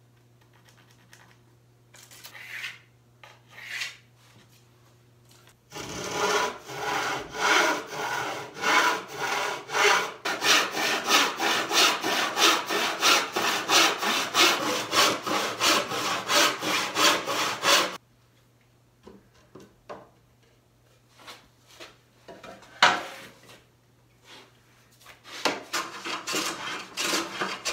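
Handsaw cutting through a thin walnut panel, fast even back-and-forth strokes for about twelve seconds, then stopping. A few scattered knocks follow, one of them loud, and near the end short scraping strokes of a hand tool start on the panel edge.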